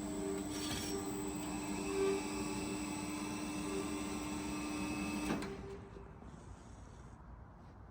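Meba horizontal band saw running with a steady hum and a high whine, switched off with a click about five seconds in.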